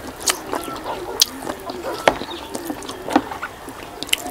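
Close-up eating sounds of people eating rice by hand: wet chewing and lip-smacking, with irregular sharp clicks.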